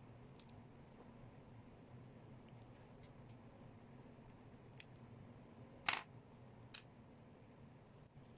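A few light, sharp clicks and taps over a faint steady hum. The loudest is a single click about six seconds in, followed by a smaller one a moment later.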